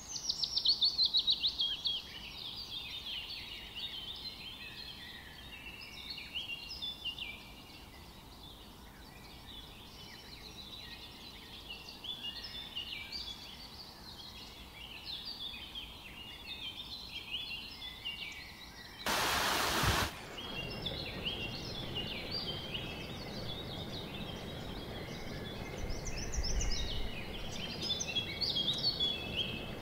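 Several songbirds singing and chirping over one another in quick, overlapping phrases. A loud burst of hiss lasts about a second, about two-thirds of the way through.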